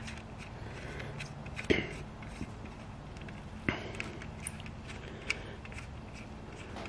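Small metal clicks and ticks as a quarter-20 bolt is threaded by hand into a rivnut in sheet metal, with two sharp clicks about two seconds apart. A steady low hum underneath.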